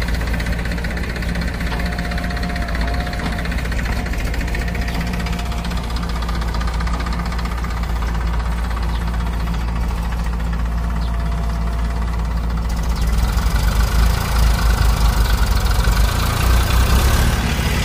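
Diesel engines of a JCB 3DX backhoe loader and a tractor running at work, a steady low engine drone that gets louder and more uneven about two-thirds of the way through.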